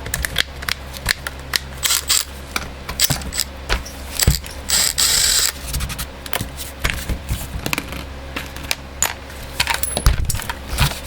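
Metal tools and small chainsaw parts clinking and tapping in irregular clicks as the saw's clutch side is taken apart, with a short hiss about five seconds in over a steady low hum.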